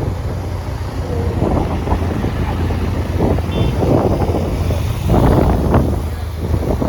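Motorcycle running on the move, a steady low engine hum under wind and road noise, swelling louder about five seconds in.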